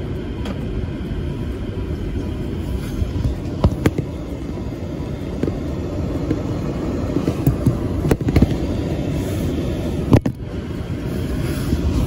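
Car driving slowly, heard from inside the cabin: a steady low rumble of engine and tyres, with a few sharp knocks and clicks.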